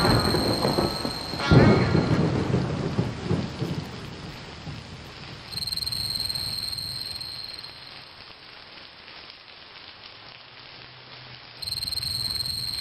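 Two heavy rumbling booms, the second and loudest about a second and a half in, each dying away over a few seconds into a steady rain-like hiss. A thin high tone comes in twice, briefly around the middle and again near the end.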